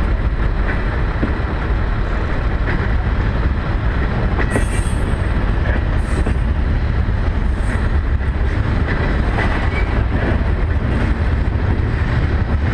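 Freight train tank cars rolling past close by, a steady heavy rumble of wheels on rail with clacking over the joints and a few brief high wheel squeals about four to eight seconds in.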